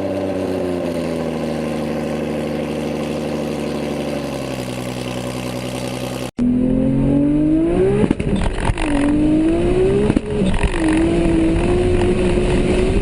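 Toyota Supra MKIV's 2JZ-GTE twin-turbo inline-six. It runs steadily for about six seconds; then, after an abrupt cut, it accelerates hard through the gears, its pitch climbing and falling sharply at two upshifts before climbing again.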